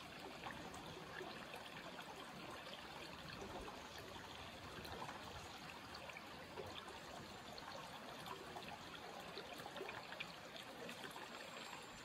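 Shallow creek trickling steadily and faintly, with small scattered splashes.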